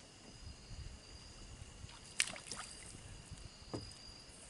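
Sharp knock about two seconds in and a lighter one near the end, with soft low bumps, over two steady high insect tones.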